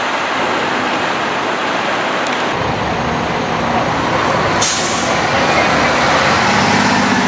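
FDNY fire engine (Squad 18's rig) pulling out, its diesel engine rumbling in from about two and a half seconds in. A short sharp hiss of air-brake release comes about four and a half seconds in, over steady loud street noise.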